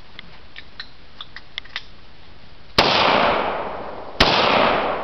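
Two rifle shots from a semi-automatic rifle, about a second and a half apart, each followed by about a second of echo dying away. Several faint clicks of the rifle being handled come before them.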